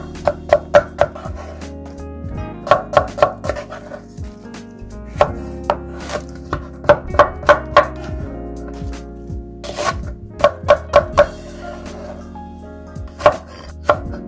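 Chef's knife slicing crisp vegetables (carrot, cucumber, chili peppers) on a wooden cutting board: runs of quick sharp knocks, about four a second, with short pauses between runs. Soft background music plays underneath.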